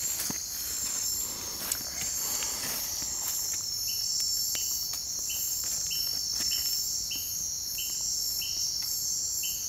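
Night insects, crickets among them, chirring steadily in a high pulsing drone. From about four seconds in, a second caller joins with short chirps repeated roughly every 0.6 s. A few sharp clicks are mixed in.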